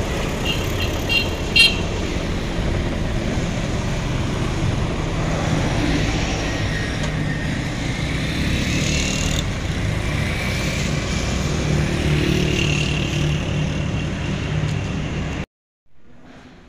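Tractor diesel engine running as the tractor pulls away along the road, mixed with road traffic. A few short horn beeps sound about a second in. The engine sound stops abruptly near the end.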